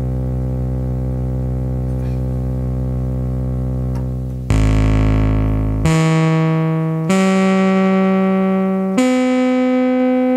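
Doepfer MS-404 analog synthesizer playing a held low bass note, then four notes about 4.5, 6, 7 and 9 seconds in, each higher than the last. Each note starts bright and mellows as it holds. This is a filter sound the repairer finds not right after the module's earthquake damage.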